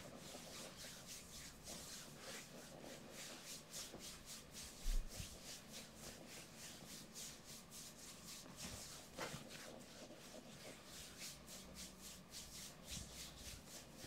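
Hands kneading and rubbing bare skin of the thigh and hip during a massage: a long run of soft, quick rubbing strokes. A single low thump about five seconds in.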